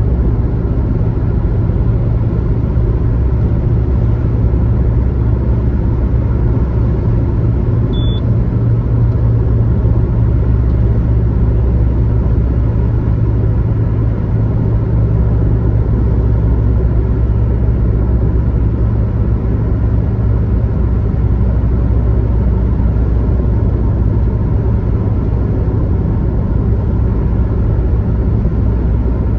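Car travelling at highway speed: a steady low rumble of engine and road noise that does not change.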